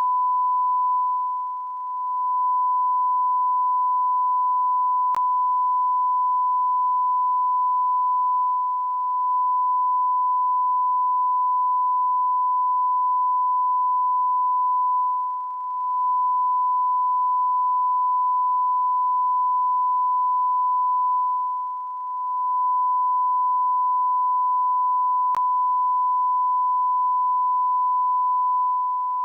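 Continuous electronic sine-wave beep held at one steady pitch, dipping briefly in loudness a few times.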